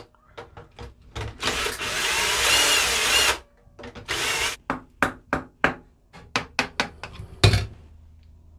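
Power drill at the guitar's tuners spinning to unwind the strings, in one long run of about two seconds and then a short one, its whine wavering in pitch. After that comes a quick series of sharp metallic clicks and ticks as the slack strings are handled and pulled free, with one loud knock near the end.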